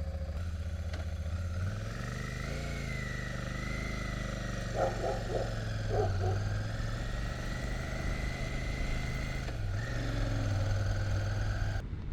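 Royal Enfield Shotgun 650's 648 cc parallel-twin engine idling just after a fuel-injected start; about two seconds in the revs rise and it then runs at a steady higher pitch. Two short clusters of clicks come about five and six seconds in.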